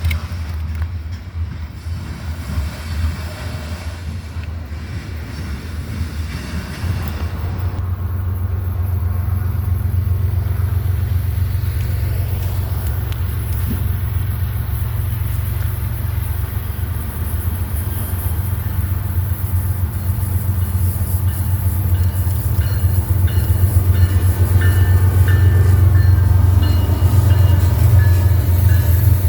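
A train running past, with a heavy steady low rumble that grows louder through the second half.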